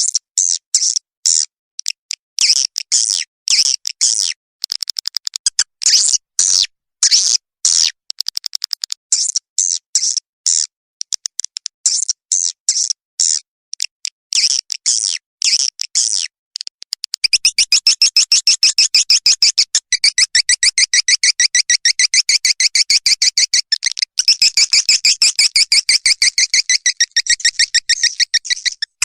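Recorded swiftlet calls: fast runs of sharp, high chirps in quick groups. About two-thirds of the way in they merge into a dense, continuous twittering.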